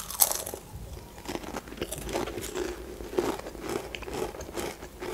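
A bite into a Pringles paprika potato crisp, one sharp crunch just after the start, then steady crunchy chewing about two strokes a second, close to the microphone.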